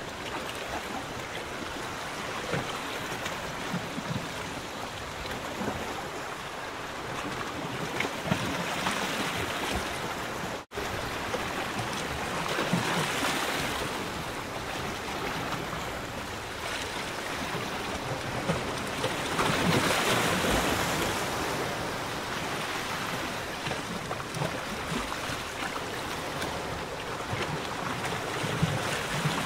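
Small waves of lagoon water lapping and splashing against a pontoon, swelling louder in a few surges, with a brief cut-out of the sound about a third of the way in.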